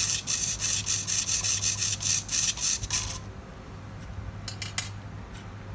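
Small hobby servo swinging a water-jet drive's steering nozzle back and forth to its set travel limits, its gears whirring in quick short bursts several times a second, then stopping about three seconds in. A few light plastic clicks follow near the end over a low steady hum.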